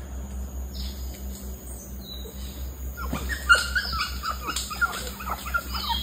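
A flurry of short, high chirping calls from animals in the treetops, starting about three seconds in. They come many in quick succession, each dropping in pitch.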